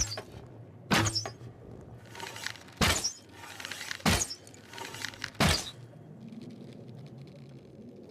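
A longbow being shot: five sharp cracks, a second or two apart, each with a short ring after it, then a few quieter seconds.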